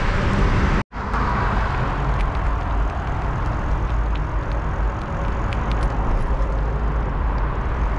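Steady wind rumble on the microphone and road traffic noise while riding a bicycle along a city street, broken by a brief dropout about a second in.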